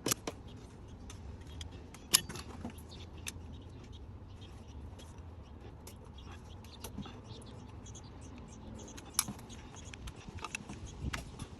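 Scattered sharp clicks and light rattling from unclipping the plastic electrical connectors on the fuel injectors, with a few louder clicks about two seconds and nine seconds in, over a low steady hum.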